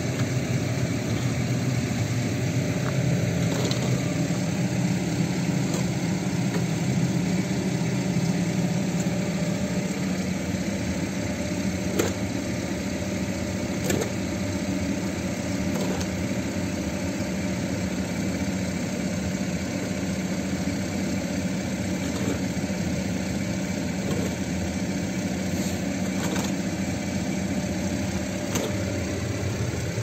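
A vehicle engine idling steadily, with a few short knocks and scrapes from a plastic shovel working through loose grain feed.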